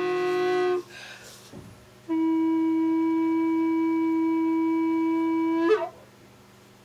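Recorder playing two long held notes. The first ends about a second in. After a short breathy pause, a slightly lower note is held for about three and a half seconds and cuts off with a brief squeak.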